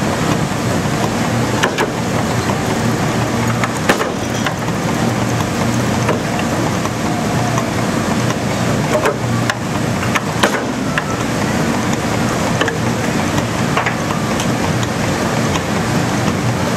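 Steady loud din of forging machinery at an axe works while a red-hot axe blank is worked on the machine's dies, with a low hum underneath and scattered sharp metallic strikes at irregular intervals.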